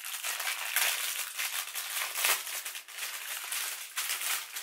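Plastic packaging crinkling and rustling as it is handled and opened, a continuous run of crackly noise.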